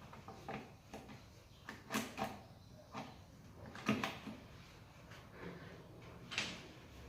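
Irregular knocks, clicks and short scrapes of tools and parts being handled during clutch and gearbox work, the loudest about two seconds in, about four seconds in and near the end.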